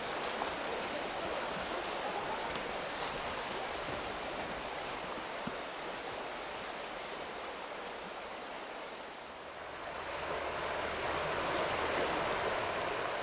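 River water flowing and babbling steadily, swelling somewhat louder near the end.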